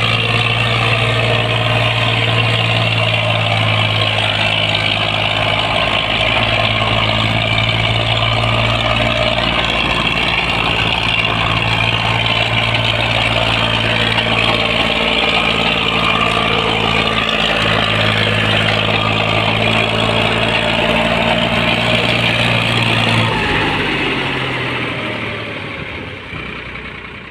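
Farmtrac 6055 and Eicher 485 diesel tractor engines running hard under load as the two tractors pull against each other, with a steady engine note. About 23 seconds in the note drops and changes, then the sound fades out near the end.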